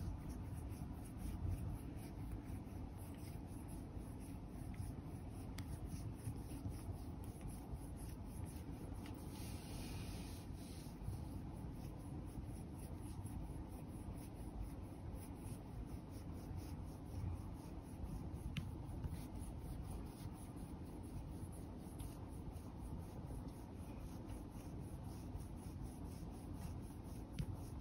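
A plastic face-massage roller with spiky wheels rolled over a cat's head and ears, making a steady soft scratchy rubbing through the fur.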